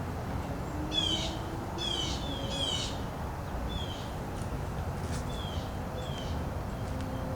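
A songbird calls repeatedly outdoors: about six short, high chirps, each a quick falling sweep, a second or so apart, over a steady low rumble.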